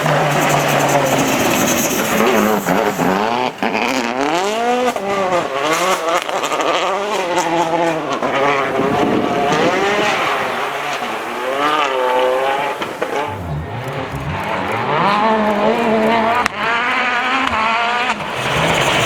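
Citroën DS3 WRC rally car's 1.6-litre turbocharged four-cylinder engine driven hard. Its pitch climbs and drops back again and again as it accelerates, shifts and lifts off through corners.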